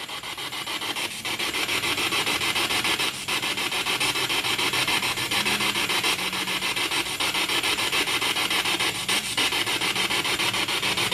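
Spirit box, a pocket FM radio made to scan without stopping and played through a small external speaker, sweeping down the FM band. It gives a steady, fast-chopping hiss of static, broken up many times a second as it steps from station to station.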